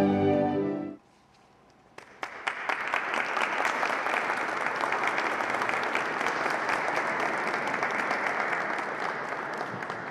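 Slow, sad music ends about a second in; after a brief pause an audience applauds, with many hands clapping, the clapping easing off near the end.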